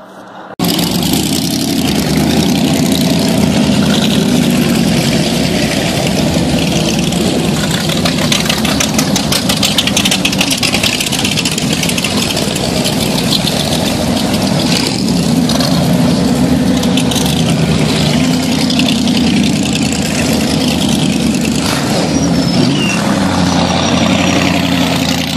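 Several Boss Hoss motorcycles, each with a Chevrolet V8 engine, riding slowly past one after another, their engines running loud and steady at low speed. The sound starts abruptly about half a second in.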